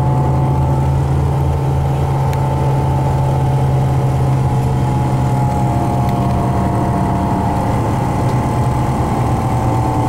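Steady drone of a tour bus heard from inside the cabin while it drives: a constant low engine hum with a fainter steady higher tone above it.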